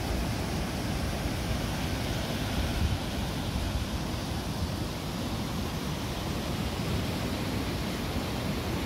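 Rushing water of a mountain stream or falls, a steady, even noise without breaks.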